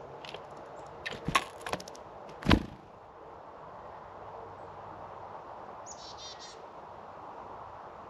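Small birds at a feeder: a few sharp taps and clicks, then one louder thump about two and a half seconds in, as birds land and peck at the feeder. Near the six-second mark a small songbird gives a short, harsh call, over a steady background hiss.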